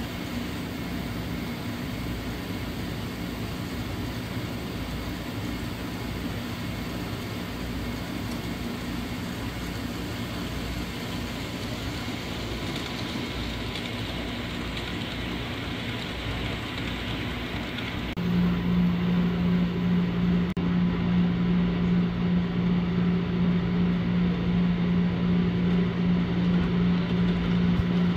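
Model trains running on a layout: a steady mechanical hum and rolling noise. About two-thirds of the way through it steps up louder, with a stronger low hum.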